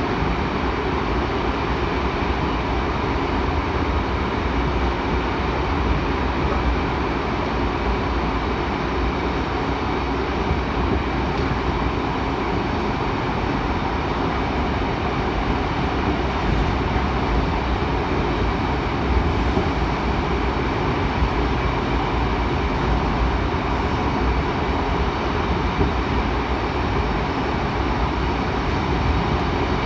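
Seoul Metro 7000 series electric subway train running at speed between stations: a steady rumble of wheels and running gear, heard from inside the car.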